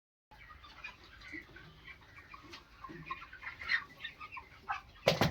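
A flock of chickens clucking and calling, many short overlapping calls, with one louder, sharper sound near the end.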